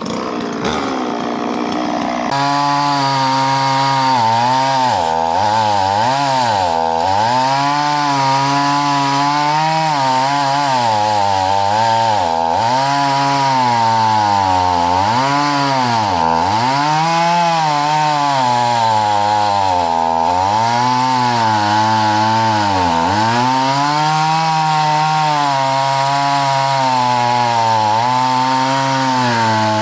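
Two-stroke chainsaw revving up in the first couple of seconds, then running at full throttle and cutting a log, its pitch dropping again and again as the chain bogs down in the wood.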